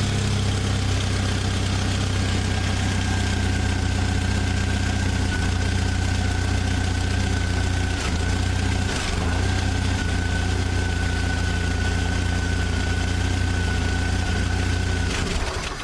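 Jeep Wrangler YJ engine idling steadily, with a thin high whine over it, then cutting out suddenly at the very end. It dies as the wiring connector is disturbed, the sign of the faulty harness plug that the mechanic takes for the cause of the crank-no-start.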